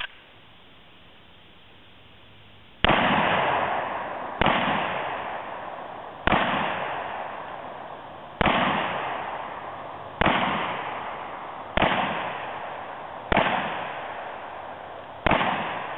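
Desert Eagle .44 Magnum pistol fired eight times, one shot every one and a half to two seconds, starting about three seconds in. Each shot trails a long echo that fades away.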